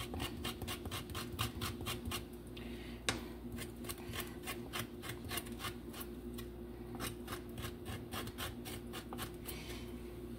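Kitchen knife blade scraping the roasted skin of goat meat, a quick run of short rasping strokes, several a second, cleaning the dirt and black spots off the skin.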